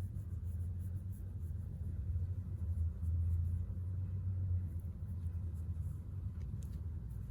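A domestic cat purring as it is stroked: a steady low rumble that swells for a couple of seconds in the middle, with faint rubbing from the hand on fur.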